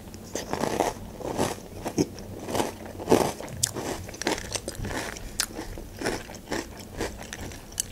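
Chewing and crunching a spoonful of Nesquik Duo chocolate cereal balls in milk: irregular crisp crunches, several a second.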